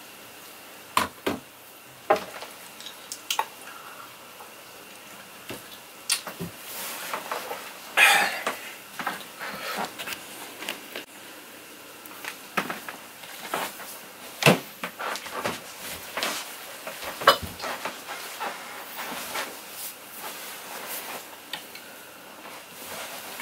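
Scattered knocks, clicks and taps from someone moving about and handling things in a small room, with a brief louder rustle about eight seconds in.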